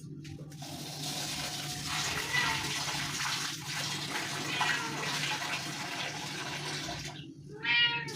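Kitchen tap running water into a glass bowl of rice to wash it, a steady rush of water; near the end a cat meows once.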